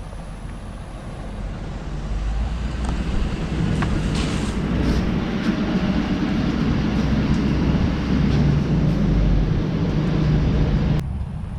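An engine running steadily, growing louder about two seconds in and cutting off abruptly near the end.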